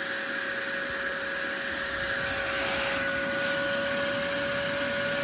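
Electric inflator blower running steadily, pumping air into an inflatable boat, with a brief extra high hiss a little after three seconds in.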